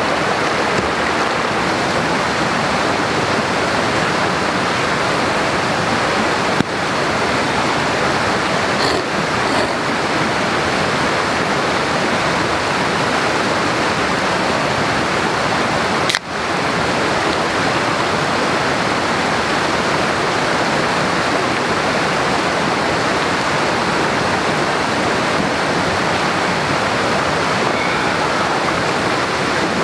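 Steady rushing water, an even, unbroken hiss, with two sharp clicks about seven and sixteen seconds in.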